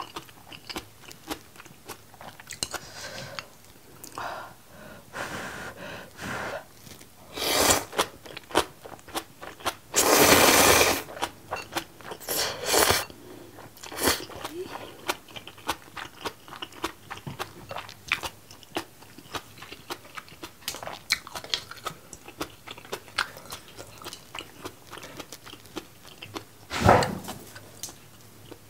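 Close-miked eating sounds of spicy seafood ramen and kimchi: steady wet chewing with small crunches and clicks, broken by several loud slurps of noodles and broth. The longest slurp comes about ten seconds in and lasts over a second, and another comes near the end.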